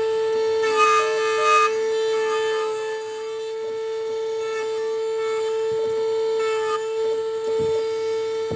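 Key-cutting machine's small electric motor running at a steady speed with a high-pitched whine, after spinning up just before. Short bursts of scraping come about a second in, about three seconds in and near seven seconds in, as the cutter bites the key blank.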